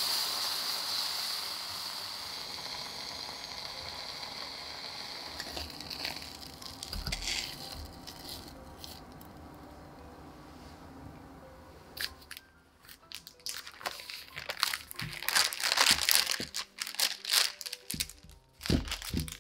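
Diced apple filling sizzling in a pot, a steady hiss that fades over the first few seconds. In the second half, parchment paper crinkling and rustling in quick sharp rustles as a log of cookie dough is handled on it.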